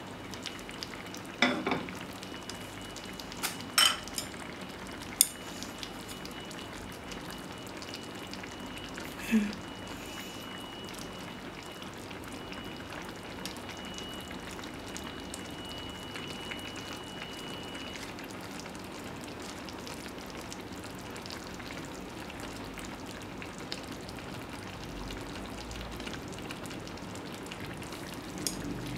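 Sukiyaki broth simmering in a donabe clay pot on a gas burner, a steady hiss of small bubbles. A few sharp clinks of the ceramic lid and pot come in the first ten seconds.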